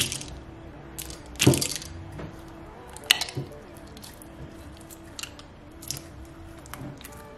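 Hands squishing and stretching clear, jelly-like water slime in a glass bowl, giving scattered wet clicks and pops, the loudest about a second and a half in and a pair around three seconds in.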